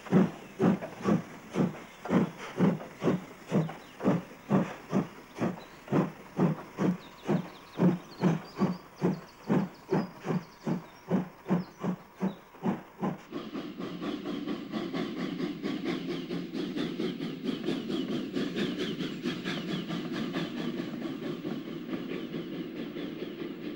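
Steam locomotive exhaust chuffing in a slow, even beat, about two loud chuffs a second, with steam hiss. About halfway through it changes to the steady rumble and wheel clatter of a train rolling past.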